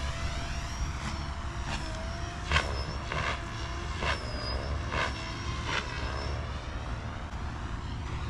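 Electric RC aircraft motor and propeller whining in flight; the whine drifts slowly in pitch as the model moves around the sky, with low wind rumble on the microphone.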